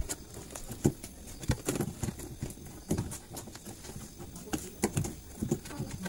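Irregular clicks and knocks of a washing machine's rubber drain-valve seal and plastic drain parts being handled.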